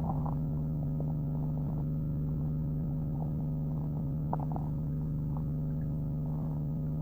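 Human stomach growling: a continuous low rumble with short, irregular gurgles on top, the strongest a little past four seconds in.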